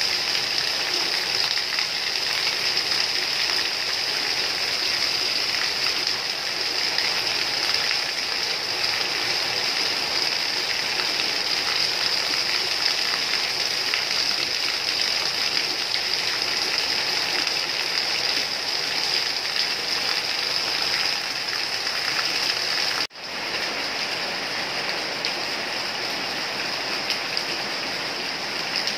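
Steady rain, an even hiss throughout. About three-quarters of the way through it cuts out for an instant and comes back slightly quieter.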